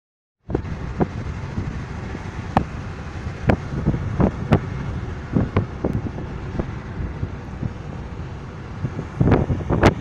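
Inside a car travelling at speed: a steady low road-and-engine rumble, with irregular sharp knocks and buffets on the microphone that bunch together near the end. The sound starts about half a second in.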